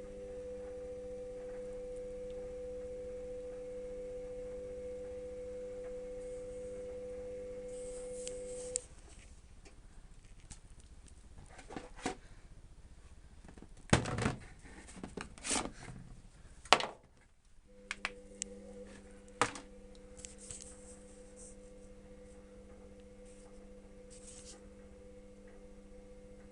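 Electrolux EWS 1045 washing machine giving off a steady electrical hum that stops about a third of the way in. A scatter of sharp clicks and knocks follows, then the same hum starts again about two thirds of the way through.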